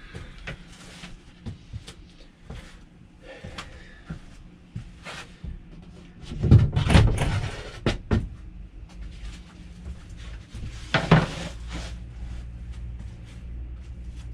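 Clunks and knocks from demolition work in a small room: scattered light clicks, a loud cluster of thumps and clatter about six to eight seconds in, and another sharp knock about eleven seconds in.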